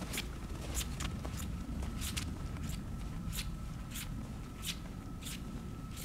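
Footsteps on a snow-covered path, about two steps a second.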